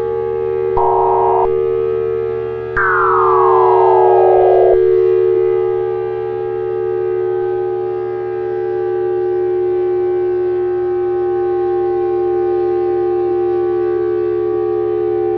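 Steady electronic drone of two close low tones. A short higher beep sounds about a second in, and a falling electronic sweep runs from about three to five seconds in. After the sweep a fainter higher tone holds on.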